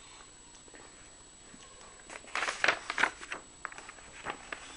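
Quiet room tone, then from about two seconds in a run of irregular light clicks and rustles, like handling noise.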